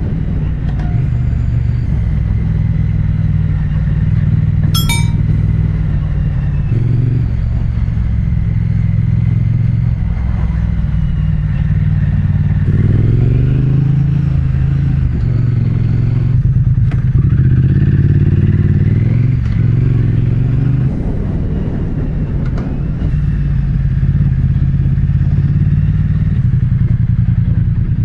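SYM Wolf Classic 125's single-cylinder engine running under way, heard through the action cam's microphone. Its pitch rises and falls several times as the rider accelerates and eases off in traffic, and there is one sharp click about five seconds in.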